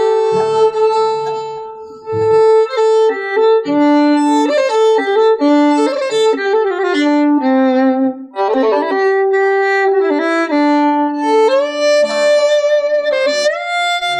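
Violin playing a melody in held notes with slides between them, with a few upward slides near the end and a lower accompaniment under it at times.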